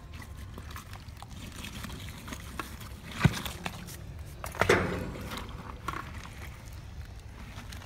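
Scattered knocks and taps of hard objects over a low steady rumble, with two louder knocks about three and four and a half seconds in, the second ringing briefly.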